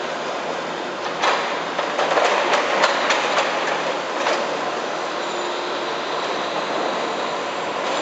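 Street digging with a mini excavator: a steady mechanical hum. A run of sharp metal clanks and scrapes starts about a second in and lasts about three seconds.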